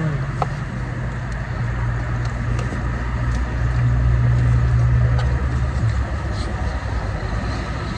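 Steady low hum of a car engine idling, swelling a little for a few seconds in the middle, with a few faint clicks.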